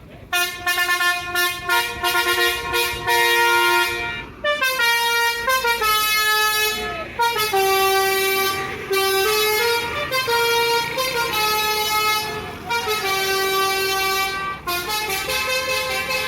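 Tour bus's basuri telolet air horn playing a tune: a run of loud, held multi-tone horn notes stepping up and down in pitch, with brief breaks between phrases.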